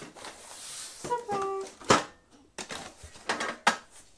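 Cardboard scraping and rustling as an inner box is lifted out and set down, then a sharp knock about two seconds in and a run of knocks and clunks as the mitre saw stand's packed metal parts are handled in the carton.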